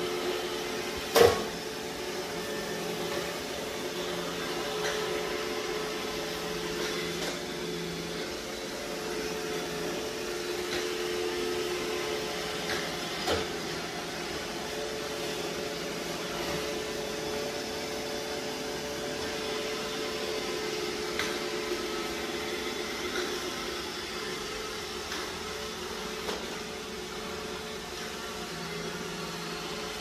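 iRobot Roomba i7+ robot vacuum running on a tile floor, a steady motor and brush hum with a few held tones. A sharp knock comes about a second in, and a smaller one near the middle.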